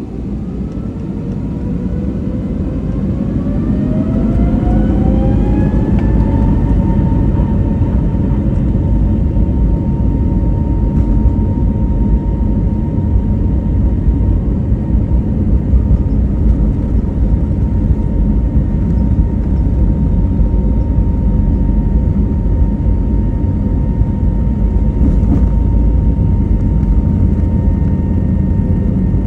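Pratt & Whitney PW1130G-JM geared turbofan engines of an Airbus A321neo spooling up for takeoff: a whine rises in pitch and loudness over the first six seconds or so, then holds as one steady high tone over a heavy rumble at takeoff thrust. The uploader likens this whine to an elephant's call.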